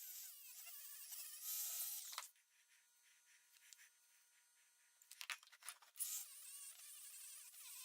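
A small high-speed motorized tool buzzing, its pitch wavering. It stops a little over two seconds in, there are a few sharp clicks, and it starts up again about six seconds in.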